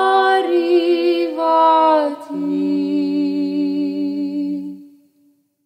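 Voices singing the closing phrase of a slow Serbian Orthodox hymn. They end on a long held chord that fades out about five seconds in.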